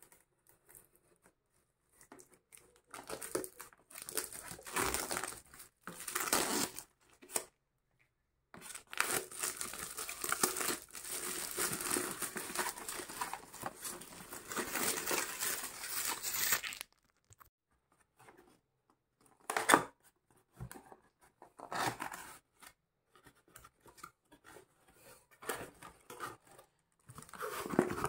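Clear plastic shrink wrap being picked at, torn and peeled off a cardboard box, crinkling in short bursts, then in one long continuous tear of about eight seconds, then in scattered crackles.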